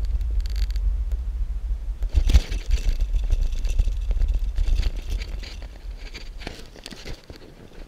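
Wind buffeting the microphone on a moving bicycle. A sharp knock comes about two seconds in, then the tyres crunch and crackle over gravel. The wind rumble fades near the end as the bike slows.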